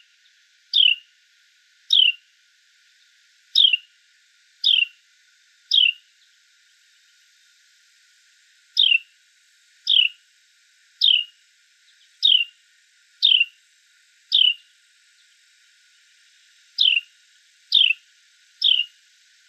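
A bird gives a loud, clear downward-sliding chirp about once a second, in runs of five or six notes separated by pauses of a couple of seconds.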